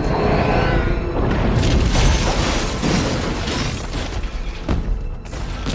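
Movie sound effects of a giant flying alien creature swooping low overhead: a deep rumbling boom with crashing debris, over orchestral film score.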